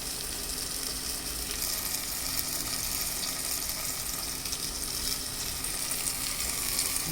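Salmon belly frying in a pan of olive oil with sautéed garlic, onions and tomatoes: a steady sizzle with fine crackling.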